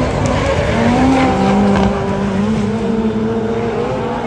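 Rallycross cars racing past at full throttle, the engine note climbing and shifting as they accelerate away, with more than one engine heard at once.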